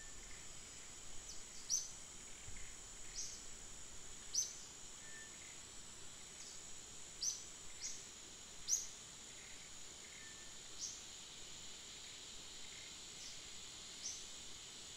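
A steady high-pitched insect drone, with short, high bird chirps scattered through it at irregular intervals, each sliding down in pitch.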